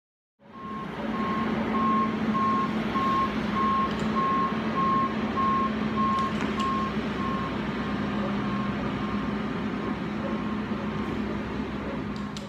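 A vehicle's reversing alarm beeping about twice a second, with a steady engine rumble underneath.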